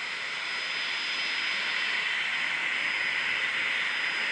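Eurocopter AS350 B2 Écureuil helicopter hovering low as it sets down: the steady whine of its single turboshaft engine and rotor noise, with a thin high tone running through it, growing slightly louder in the first second.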